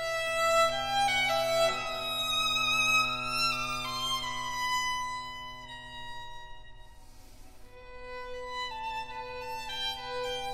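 Background music: a slow, stepwise melody over a held low note, growing softer about halfway through and then picking up again.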